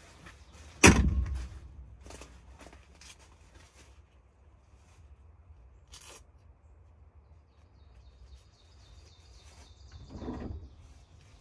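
A single sharp knock about a second in, then quiet woodland air with a few small clicks, a faint high bird trill and a brief low rustle near the end.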